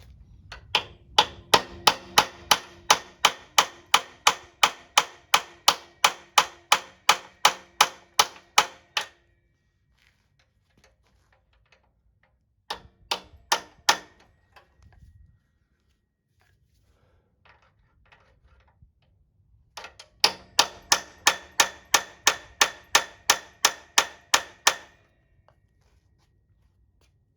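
Rapid metal-on-metal hammer blows, about three a second, each with a short ringing tone, striking a tool against a tight spanner nut to turn it without the special wrench. Two long runs of blows, with a short burst of strikes and pauses between them.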